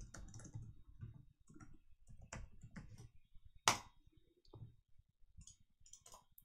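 Light clicks of typing on a computer keyboard, with one louder, sharper click a little past halfway.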